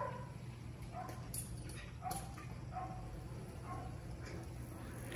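Dog barking at a distance: short barks repeated every second or so, over a steady low hum.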